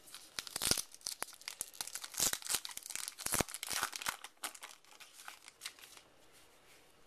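Crinkling and tearing of a trading-card pack's wrapper being ripped open, a rapid run of crackles that thins out and stops about a second before the end.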